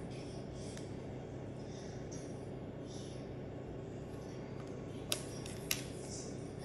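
Two sharp, brief clicks about half a second apart, near the end, as the watch's white plastic charging dock is picked up by hand, over a steady low background hum.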